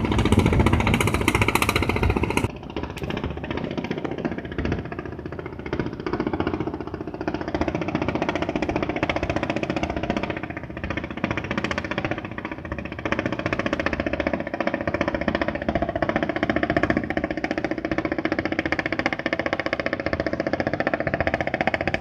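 Fishing boat's inboard engine chugging steadily with a fast knocking rhythm; a higher hiss drops away about two and a half seconds in.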